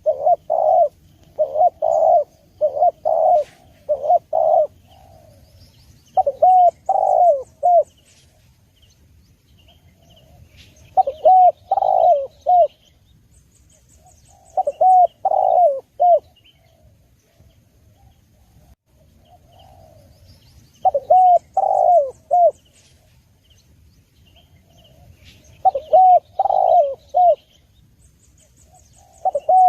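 Spotted dove cooing: phrases of three or four short, low coos, repeated every four to five seconds, with a quicker run of coos in the first few seconds. Faint high chirps of small birds sound behind it.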